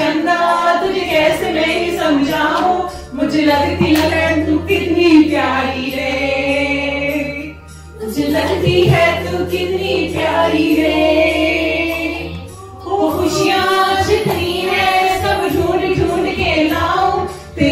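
A voice singing a song over a karaoke backing track with a steady bass line. The sung phrases break off briefly about three, eight and thirteen seconds in.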